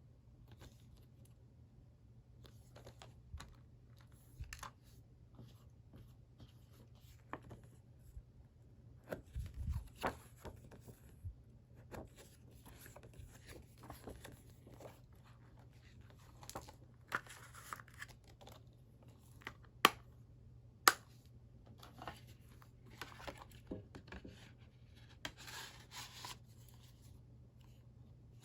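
Handling of a plastic Blu-ray/DVD case and its packaging: rustling, crinkling and scraping with scattered small clicks. Two sharp clicks about a second apart come about two-thirds of the way through. A faint steady low hum sits underneath.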